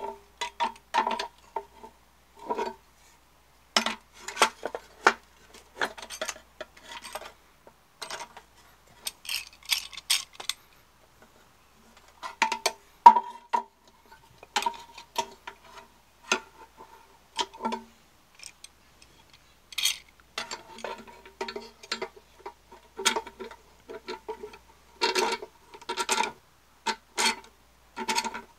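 Scattered metallic clinks, knocks and scrapes as a C-clamp is fitted and screwed down on a lawn tractor's sheet-metal muffler held in a bench vise. Many knocks ring briefly with the same short tone of the muffler shell.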